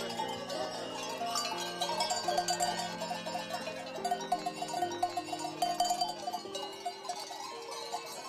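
Many cowbells on a herd of cattle clanking and rattling as the animals move, over quiet background music of held notes.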